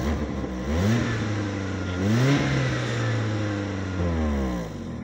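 Lada Priora's four-cylinder petrol engine revved from idle: the pitch climbs about a second in, rises higher at around two seconds, holds, then falls back toward idle near the end. The engine is being revved to check for oil-burning exhaust smoke after a piston-ring decoking treatment.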